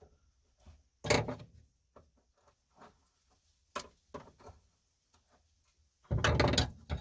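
Clicks, taps and rattles of hands handling small metal parts and a seat belt retractor assembly: a louder rattling, rustling stretch about a second in, a sharp click near the middle, and another louder rattling stretch near the end.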